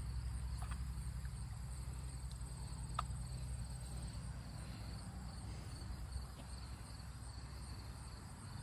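Insects chirping in a steady, even rhythm, over a low rumble, with one brief click about three seconds in.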